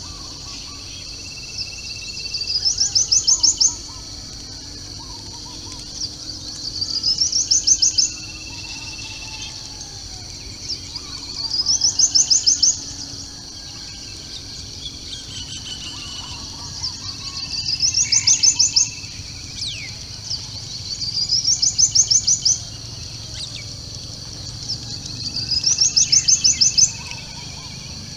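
A bird repeating the same call every four to five seconds: a quick series of about ten high notes that climbs in pitch and grows louder, lasting about a second. Behind it is a steady high-pitched insect hiss and faint softer bird calls.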